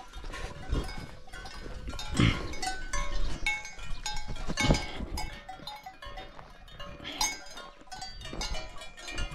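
Bells on cattle clanking irregularly at several different pitches as the animals walk along, with a few dull knocks about two, five and seven seconds in.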